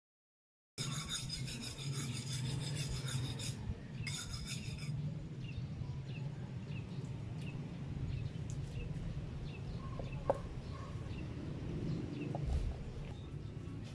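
Outdoor yard ambience: a high, evenly pulsing rasping buzz for the first few seconds, then short chirps repeating about twice a second, over a steady low hum, with one click about ten seconds in.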